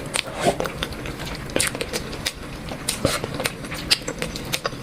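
Close-up eating sounds: a person chewing and smacking on a mouthful of curry and rice, with irregular wet clicks and crackles several times a second.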